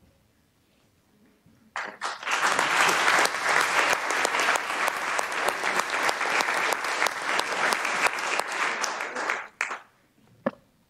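A roomful of people applauding: dense clapping starts about two seconds in, runs for roughly eight seconds and dies away, with a couple of last stray claps near the end.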